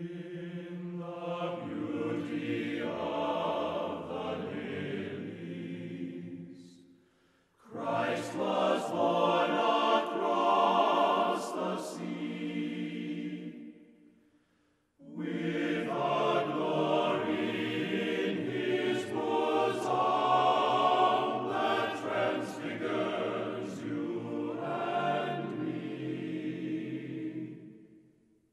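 Music with a choir singing in long, sustained chant-like phrases, in three passages broken by brief pauses about a third and halfway through.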